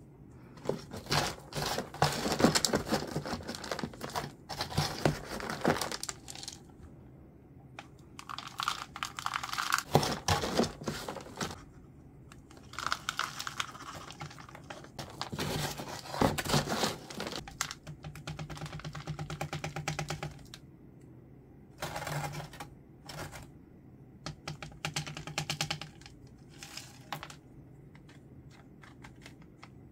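Crinkling, rustling and tearing sounds in repeated bursts of a few seconds, from hands handling plants and potting material during repotting. The sounds die away near the end.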